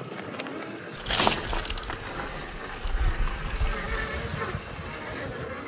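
1/8-scale YK4083 Ford Bronco RC rock crawler working over rock and gravel: a sharp crunch of stone about a second in, then low, uneven rumbles and scraping as the tyres climb the rocks.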